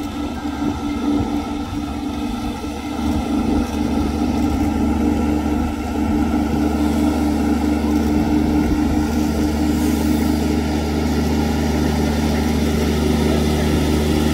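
Riding rice transplanter's engine running at a steady pitch as it drives through a flooded paddy planting rice seedlings, getting a little louder about halfway through as the machine comes closer.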